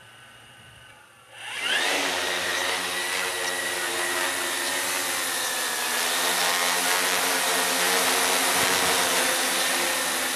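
Tarot X6 hexacopter's six brushless motors with 18-inch propellers spooling up from a faint idle about a second and a half in, the whine rising fast in pitch and loudness as it lifts off. It then holds a steady, loud, high whine with propeller drone as it hovers.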